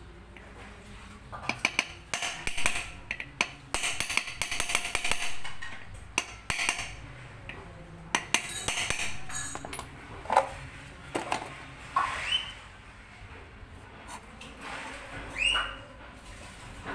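Metal parts of an electric bicycle hub motor clinking, tapping and rattling as it is assembled by hand, busiest in the first half. Several short rising chirps sound in the second half.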